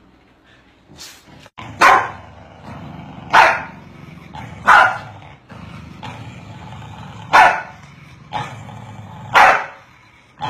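Corgis barking at each other: a series of loud single barks, one every one and a half to two and a half seconds, after a quiet first second and a half, with a low steady rumble between the barks.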